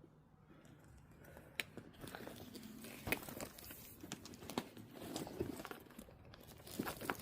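Faint rustling of a handbag being handled, with a few light clicks scattered through it.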